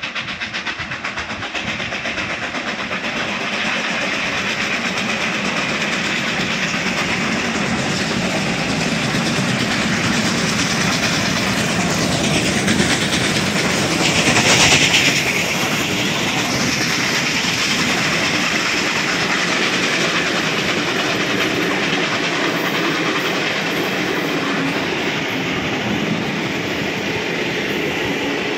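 Steam-hauled heritage train passing through a station. The locomotive is loudest about halfway through as it goes by, and the carriage wheels then clatter steadily over the rail joints as the train rolls past.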